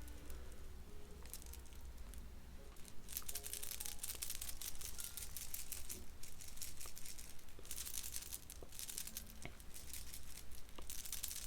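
Rustling and crinkling in repeated bursts, strongest in two long stretches in the middle, with a few light clicks, over faint soft music.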